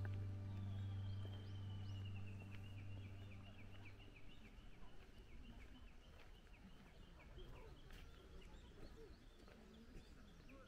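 Background music fading out over the first few seconds. Underneath it and on alone after, a faint animal keeps up a long run of short chirping calls, about three a second, sliding slowly lower in pitch before levelling off.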